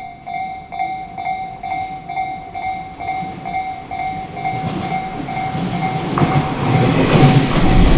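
Japanese railway level crossing's electronic warning bell ringing in a steady quick rhythm. From about halfway through, an approaching train's running noise rises under it and grows louder.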